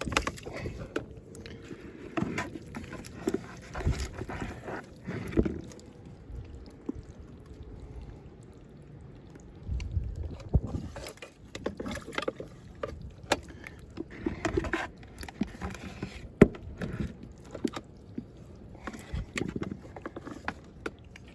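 Water sloshing and splashing as killifish are handled out of a killie trap into a container, with irregular sharp clicks and knocks from the trap and container.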